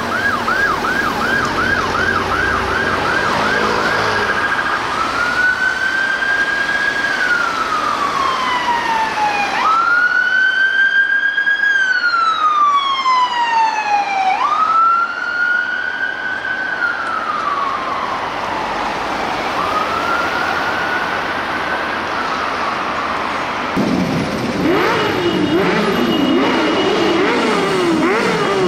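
Renault Master ambulance's two-tone electronic siren: a fast yelp for the first few seconds, then a slow wail that rises and falls every few seconds as the van passes. Near the end the siren fades and a group of motorcycles rides past, their engines revving.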